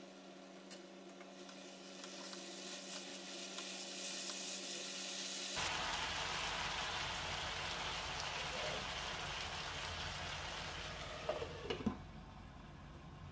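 Chicken and onion curry sizzling in a nonstick frying pan, with a few knocks near the end as a glass lid goes onto the pan.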